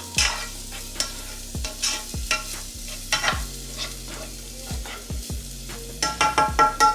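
A utensil scraping and clicking against the pan while chopped onion and jalapeño are stirred, sizzling in hot olive oil.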